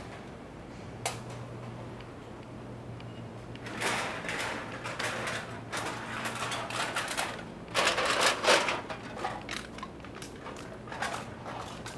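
City street ambience with a steady low hum, a swell of noise about four seconds in and a louder one about eight seconds in, and scattered short clicks.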